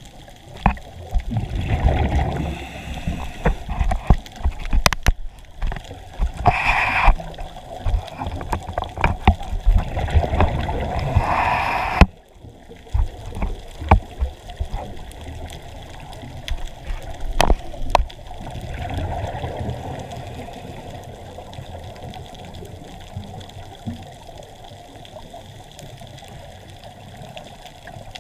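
Underwater sound picked up by a camera in a waterproof housing: muffled water movement and gurgling with scattered sharp clicks and a couple of brief louder rushes, dropping abruptly to a quieter, steadier wash about 12 seconds in.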